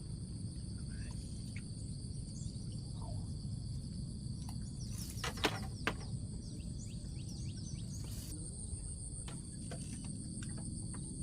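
Outdoor ambience: a steady, high insect drone over a low rumbling background noise, with faint short chirps and a few sharp clicks about five to six seconds in.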